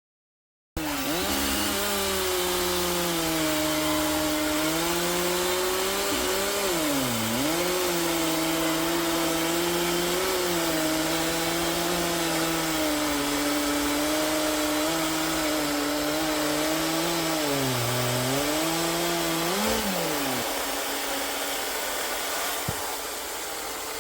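Chainsaw with a full-chisel chain cutting through an oak log: a steady high motor pitch that sags briefly twice as the chain bites harder, then stops near the end.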